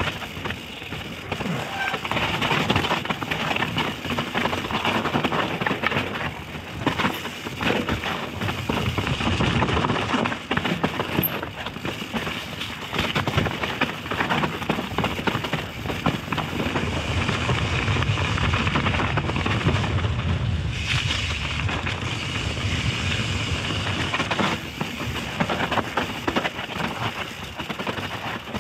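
Mountain bike riding down a rough trail: constant tyre and wind noise with frequent rattling knocks and clatter from the bike.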